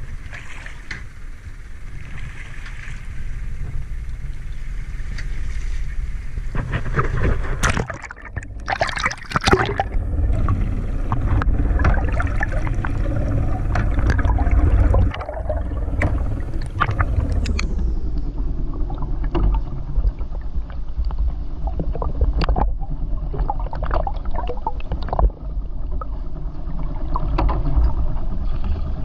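Wind and sea slapping against a boat's side, then a splash about eight seconds in as the microphone goes underwater, followed by muffled gurgling and rushing water over a low rumble.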